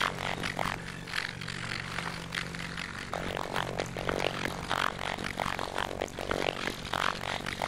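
Scissors cutting through a sheet of paper: a run of short crisp snips, a few a second, pausing for a couple of seconds about a second in, then resuming.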